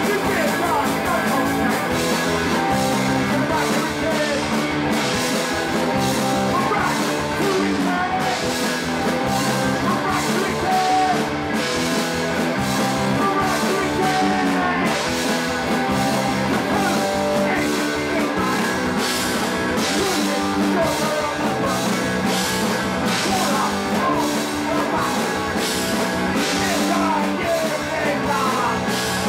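Punk rock band playing a song live: electric guitar, bass and drums with a singer, loud and steady throughout.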